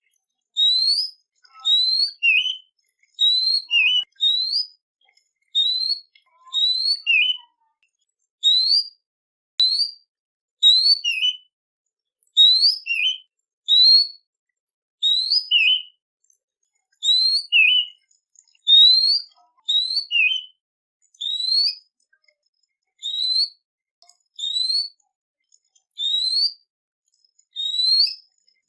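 A songbird's short whistled call repeated about once a second, each note a quick upward-sliding whistle, some followed by a lower clipped note.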